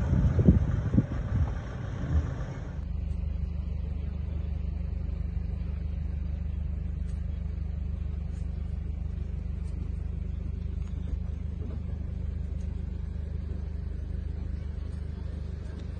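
Over the first couple of seconds a male lion's roar trails off in a few deep, pulsing grunts. After a cut, a vehicle engine runs with a steady low hum.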